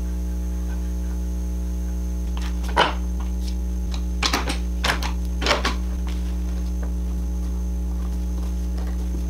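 Steady electrical mains hum, with a handful of short knocks about three to six seconds in as the clamped wooden panel and its bar clamps are handled.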